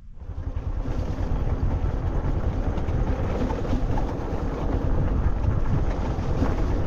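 Loud wind buffeting the microphone: a rough, uneven rumble that starts abruptly and holds steady.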